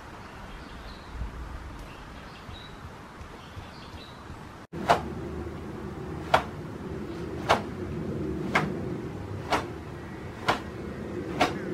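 A karate gi snapping with each stationary straight punch: seven sharp cracks about a second apart, starting about five seconds in. Before that there is only a quiet outdoor background.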